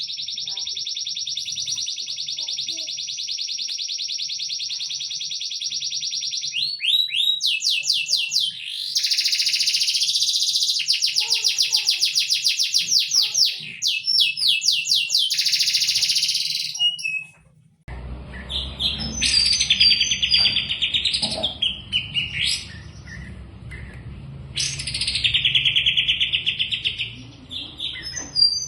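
Songbird singing long, very rapid trills: one held unbroken for about six seconds, then fast runs of repeated notes. Partway through the sound breaks off and shorter trilled phrases follow over a low background rumble.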